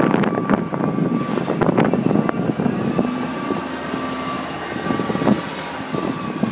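Steady engine drone of street traffic or a passing aircraft, with a faint high whine running through it and a few light clicks.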